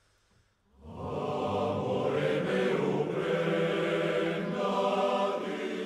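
Background music of voices chanting together in long, steadily held notes, coming in about a second in after a brief near-silent gap.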